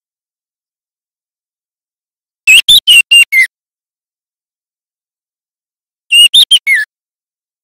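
Juvenile white-rumped shama singing its learning song: two short phrases about three and a half seconds apart. Each phrase is about five quick whistled notes, and the last note slides downward.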